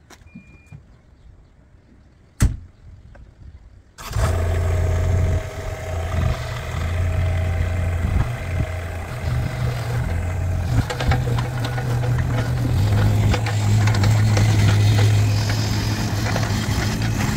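Kubota KX41-3V mini digger's small three-cylinder diesel engine: after a short beep and a sharp click, it starts about four seconds in and runs steadily, its engine speed shifting a few times and running higher near the end.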